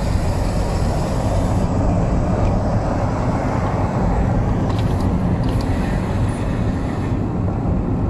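Steady road noise and engine rumble inside a moving car.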